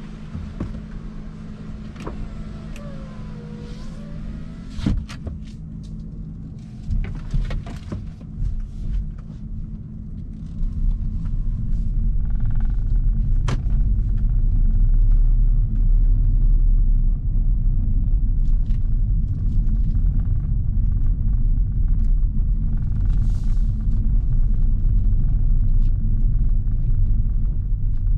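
Hyundai Kona Hybrid heard from inside the cabin. At first there is a steady low hum with scattered clicks. From about ten seconds in, a loud, steady low rumble of the car moving off and driving takes over.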